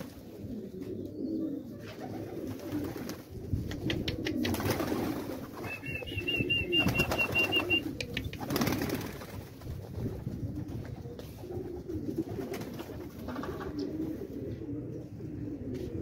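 Domestic pigeons cooing continuously, with a few wing flaps as birds land. A high, rapid trill joins in about six seconds in and lasts about two seconds.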